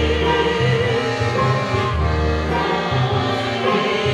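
Live chamber opera: voices singing over a small chamber ensemble with strings, and a low note held in long repeated strokes underneath.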